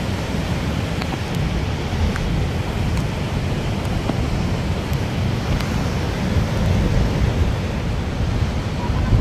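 Strong wind buffeting the microphone over the steady wash of rough surf breaking on the shore.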